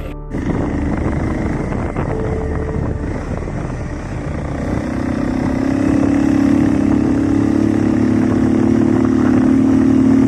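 Motorcycle engine running on the move, with a rushing noise under it. The engine note grows louder and steadier from about five seconds in.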